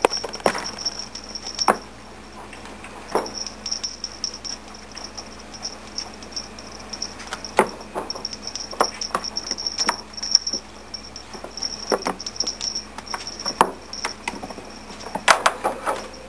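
Irregular light knocks and taps of kittens' paws and bodies scampering and bumping on a hard enclosure floor close by. A cluster of sharper knocks comes near the end, over a faint high whine that comes and goes.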